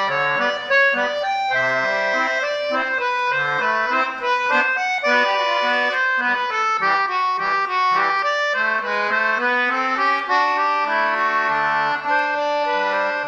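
Accordion playing a tune of steady held notes over a moving bass line.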